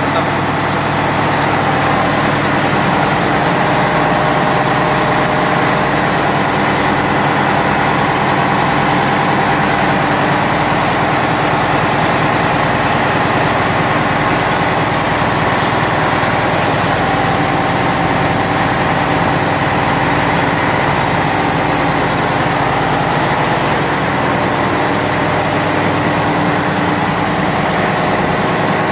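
Steady, loud noise of a ship's engine room, with its diesel engines and machinery running without change.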